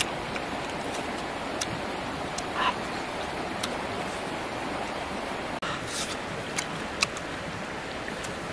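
Steady rushing of flowing river water, with a few soft clicks and a short squeak about two and a half seconds in.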